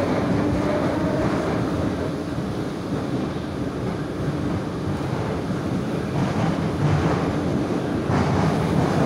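Moscow metro train accelerating away from a station, heard from inside the car: a traction-motor whine rising slowly in pitch over a steady rolling rumble that grows a little louder near the end.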